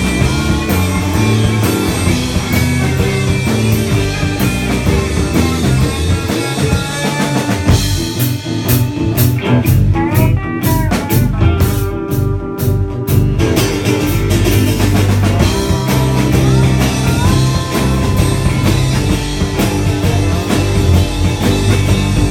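Live country rock-and-roll band playing an instrumental break with no singing. Between about 8 and 13 seconds in, the bass and drums mostly drop out under quick picked strokes, then the full band comes back in.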